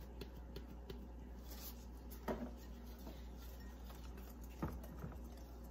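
Faint kitchen handling sounds as seasoning is measured into a bowl of flour: two soft short taps about two seconds apart, over a steady low hum.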